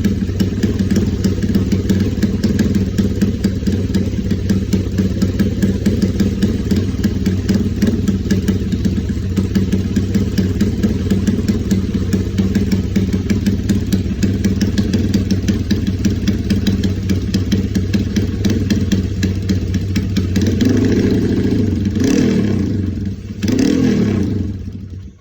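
Honda GL motorcycle's single-cylinder four-stroke engine idling steadily through an aftermarket Fantera-style silencer with a blue-moon tip. Near the end it is blipped twice, each rev rising and falling, before the sound cuts off.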